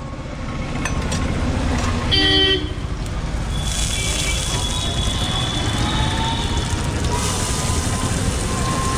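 A steady low rumble with a short vehicle horn toot about two seconds in. From about three and a half seconds in, hot oil sizzles on a flat iron tawa griddle as chopped green chillies and onion go on.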